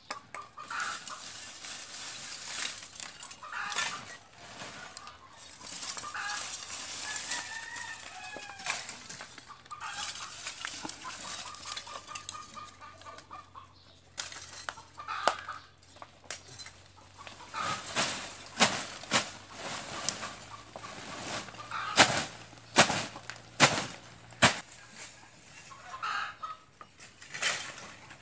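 Chickens clucking, with a rooster crowing, in calls that come and go. In the second half there is a run of sharp clacks and knocks.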